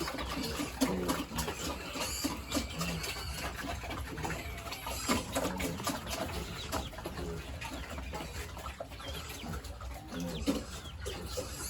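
Farm animals calling in short, scattered calls, over a dense stream of small clicks and rustling.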